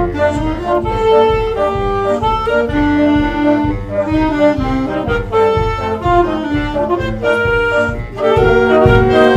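Concert wind band playing: held reed and brass chords over a steady low beat, with the full band and brass coming in louder near the end.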